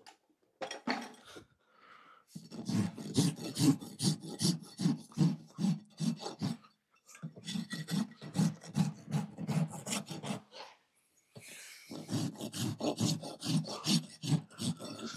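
Farrier's hoof rasp filing the wall of a horse's hoof held on a hoof stand, shaping the perimeter of the hoof. It goes in steady rasp strokes, about three a second, in three runs with short pauses between.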